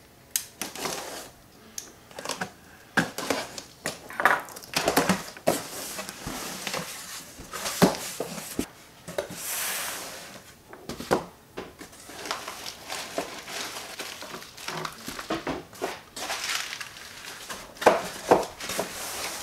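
A cardboard shipping box being opened and unpacked by hand: cardboard flaps and packets handled with irregular knocks and scrapes, crumpled kraft packing paper rustling and crinkling, and small cloth bags set down on a countertop.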